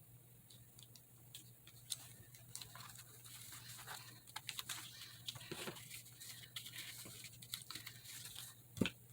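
Scissors snipping and paper rustling as a paper bird cutout is trimmed: scattered small clicks and crackles, with one louder knock near the end.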